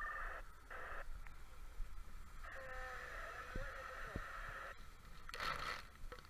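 Fire brigade two-way radio traffic heard over a scanner: a couple of short, tinny transmissions, a longer one through the middle, and a brief burst of static near the end.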